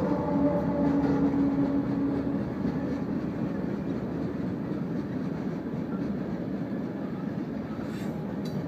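Freight train tank cars rolling past at close range, a steady rumble of steel wheels on the rails with some clickety-clack. The drone of the trailing GE diesel locomotive fades out over the first two seconds or so.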